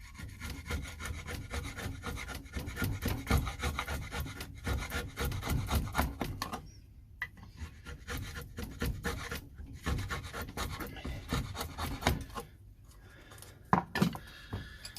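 Hand tool scraping wood in rapid short strokes, cleaning out the hollow cut into a wooden sharpening-stone box. The scraping stops briefly about seven seconds in and again near the end, where there is a sharp knock.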